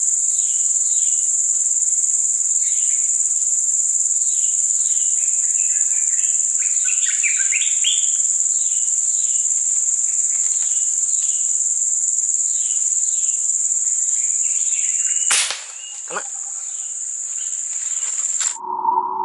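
Steady high-pitched insect drone in the forest, with short falling chirps repeating about once a second over it. A sharp click comes about fifteen seconds in and a thud a second later; then the forest sound cuts off abruptly and a steady electronic tone starts near the end.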